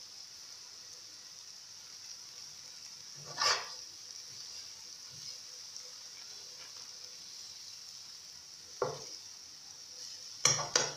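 Scrambled eggs sizzling quietly and steadily in a metal frying pan, with a metal utensil scraping and clinking against the pan once about a third of the way in, once more later, and several times in quick succession near the end.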